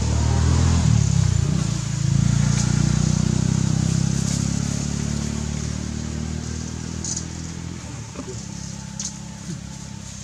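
A motor vehicle's engine running close by, a steady low drone that is loudest in the first few seconds and slowly fades away.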